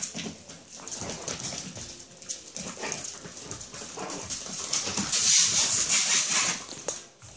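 7½-week-old Chihuahua puppies making small dog sounds as they wrestle and scamper, with scratchy scuffling throughout. About five seconds in, a loud swishing hiss lasts over a second as a mop sweeps past.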